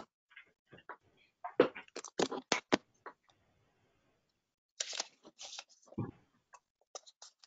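Scattered clicks and knocks from someone walking up to a podium and settling in, with a short rustle about five seconds in and a dull thump about a second later.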